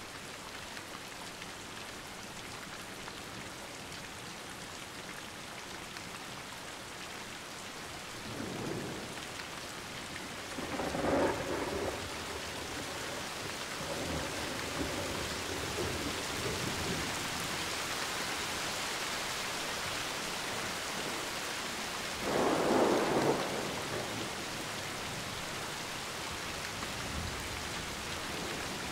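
Thunderstorm: steady rain hiss with rolls of thunder. A rumble builds about a third of the way in, a louder peal follows and rolls on for several seconds, and another loud peal comes about three quarters of the way through. The rain grows a little louder after the first thunder.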